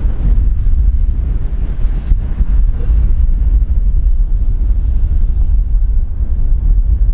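Strong, gusty wind buffeting the microphone in a loud low rumble, over the jet engine noise of an Airbus A321 airliner on final approach.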